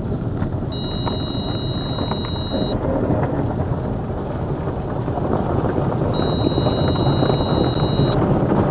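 Automatic car wash heard from inside the car: water spray and soft cloth brushes scrubbing over the windshield and roof make a steady, dense wash noise that grows a little louder toward the end. A steady high electronic warning tone, the car's parking sensor reacting to the brushes, sounds twice for about two seconds each.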